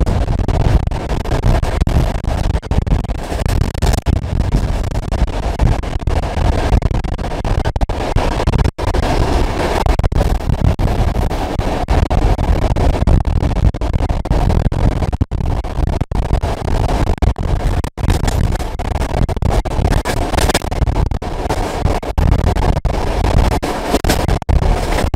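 Loud, steady rumble of a moving train hauled by an SP42 diesel locomotive, heaviest in the low end, with the sound cutting out for an instant a few times.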